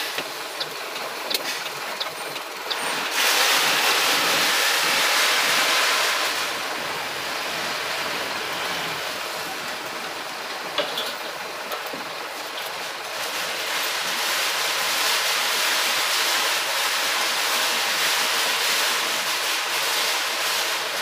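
Street traffic and vehicle noise: a steady rushing hiss with no clear engine note, which turns louder about three seconds in, eases after a few seconds and swells again later.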